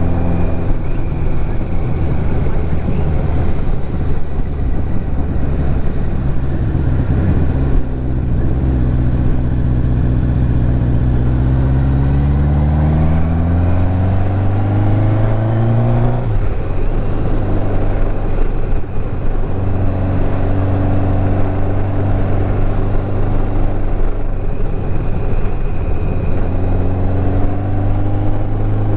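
Kawasaki motorcycle engine running on the road, with wind rush. About a quarter of the way in the engine note climbs steadily as the bike accelerates, then drops sharply just past halfway at a gear change and settles to a steady cruise.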